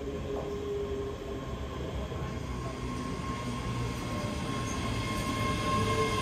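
Two coupled ScotRail Class 385 electric multiple units running in along the platform. A steady electric whine sits over the rumble of the wheels, and the sound grows louder as the train comes alongside.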